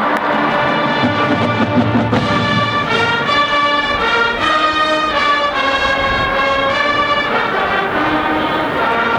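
College marching band playing, its brass holding a slow melody of long sustained notes, with low notes underneath for the first couple of seconds.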